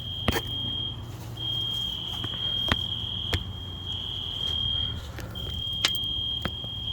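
Building fire alarm sounding a steady high-pitched tone, broken by short gaps every one to two seconds. A few sharp clicks are heard over it.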